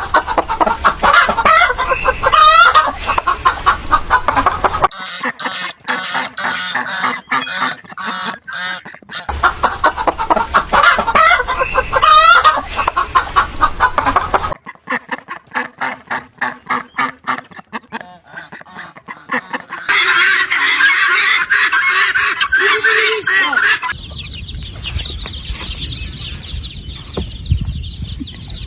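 Farmyard poultry calling: geese honking and chickens clucking, in several short sections that cut abruptly from one to the next.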